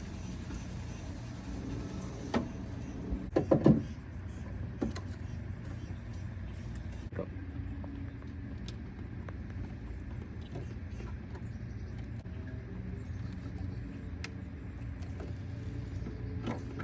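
Scattered clicks and knocks of rivets being fitted into a car's door card, the loudest a quick cluster of snaps about three and a half seconds in, over a steady low hum.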